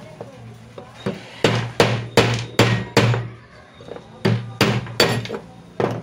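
About ten sharp metallic hammer blows on a screwdriver used as a punch in the end bracket of a mixer-grinder motor: a run of about six, then after a pause four more. They knock out the worn bush's retaining spring leaf and felt so that a new bush can be fitted.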